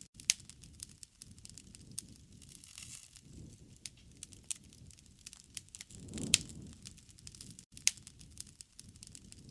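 Wood fire crackling: irregular sharp pops and snaps from burning wood over a soft low rumble of flame, with a louder pop and surge of flame about six seconds in.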